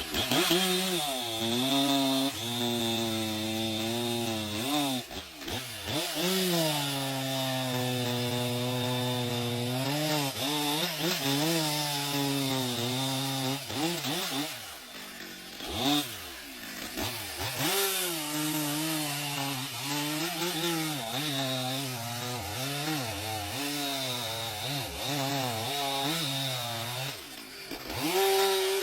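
Chainsaw cutting wood, the engine speed rising and sagging again and again as the chain bites and the throttle is eased, with a few brief drops in speed along the way.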